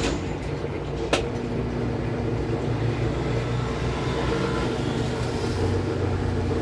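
Washing machine running with a steady motor hum. Two sharp clicks sound near the start, about a second apart.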